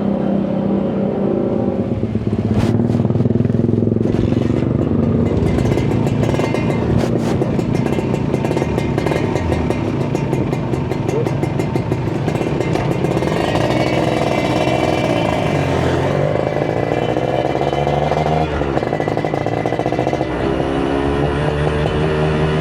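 Kawasaki Ninja 150 RR's two-stroke single-cylinder engine running under way. Its pitch rises and falls as it revs through the gears, with a run of rapid crackles in the middle.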